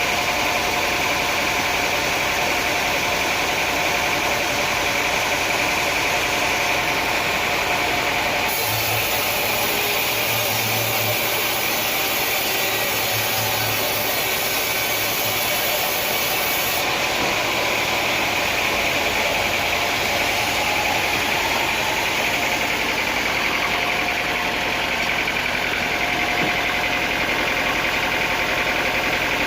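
Sawmill machinery running steadily with engine noise, the sound changing abruptly twice, about a third and about halfway through.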